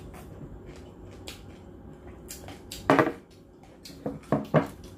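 Hands handling a whole roasted pig's head on a tray: scattered faint clicks and clinks, with a louder short knock about three seconds in and a few more near the end.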